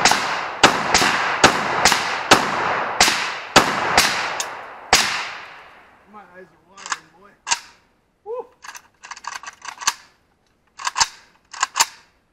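Rifle fire comparing an unsuppressed AK in 7.62×39 with a suppressed AR-15 in .223. About ten loud shots with long echoing tails fill the first five seconds, then come quieter, sharper shots: a quick run about two-thirds through and a few more near the end.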